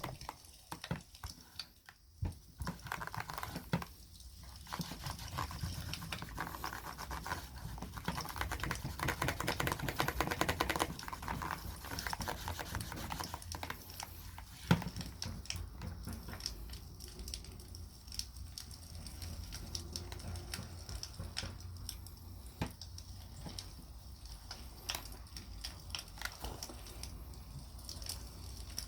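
Wood campfire crackling with scattered small pops, one sharper pop near the middle, together with the rub of beeswax being worked into a leather knife sheath, denser and louder in the first third.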